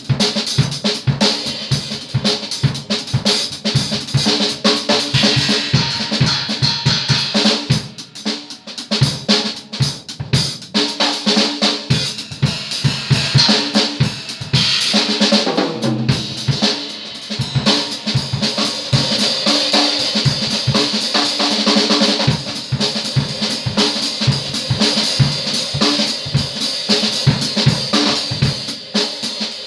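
Drum kit played in a steady groove: bass drum and snare hits under a bright, ringing metallic wash. The beat thins out briefly about eight seconds in and again around fifteen seconds.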